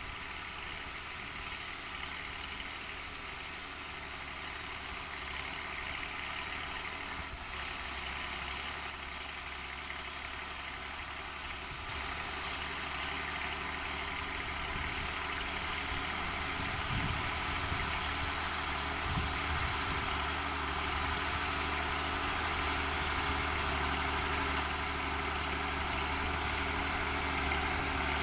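Six-cylinder diesel engine of a Fiatagri 100/90 DT tractor running steadily while pulling a disc harrow, growing gradually louder.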